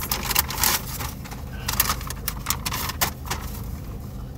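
Paper fast-food takeout bag rustling and crinkling as hands dig through it: a run of sharp crackles in several clusters, over a steady low hum.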